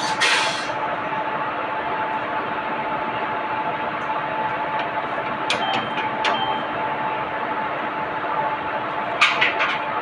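WAG-5 electric locomotive standing after start-up, its machinery giving a smooth, steady hum with a held tone. A short hiss comes right at the start, and a few sharp clicks come about halfway through and again near the end.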